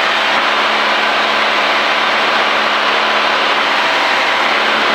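Single-engine Cessna's piston engine and propeller running steadily in flight, heard inside the cabin as a constant drone with a steady low hum.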